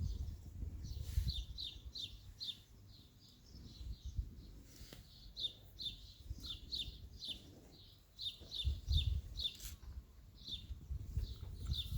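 A bird chirping over and over in short, falling chirps, about three a second, with irregular bouts of low rumbling beneath.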